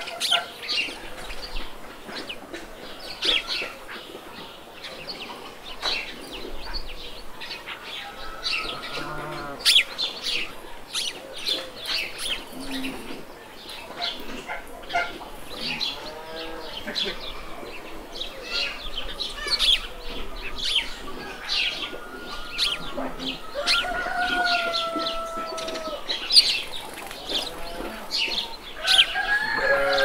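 Farmyard ambience: small birds chirping busily, with chickens clucking and a few longer drawn-out calls now and then.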